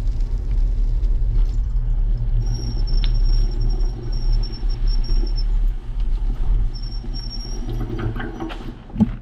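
Bicycle rolling slowly over gravel and sand, with a steady low rumble of wind on the helmet-camera microphone. A thin high squeal comes in twice. A single knock sounds just before the bike stops near the end.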